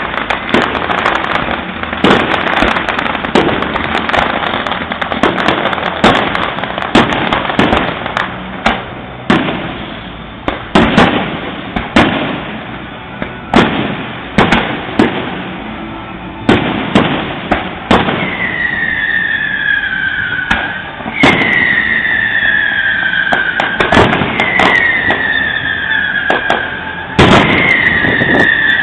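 Fireworks going off in a dense barrage: many sharp bangs, often one or two a second, over continuous crackling. About two-thirds of the way in, a falling whistle joins and repeats about every three seconds, each one starting with a bang.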